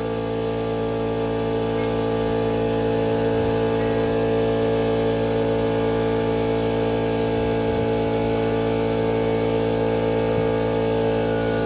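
Steady machine hum made of several fixed tones, holding an even pitch and level throughout.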